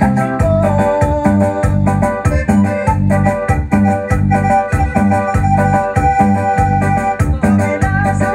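Latin dance music from a band, led by an electronic keyboard with an organ sound playing a held melody over a steady bass beat.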